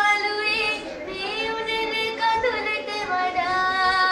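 A single high voice singing a slow melody, holding each note for about a second with slight wavers in pitch.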